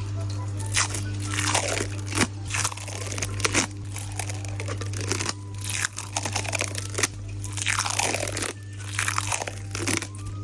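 Lemon-shaped squishy stress ball squeezed over and over, each squeeze a sharp crackling squish with a falling tail, about ten in all. A steady low hum runs underneath.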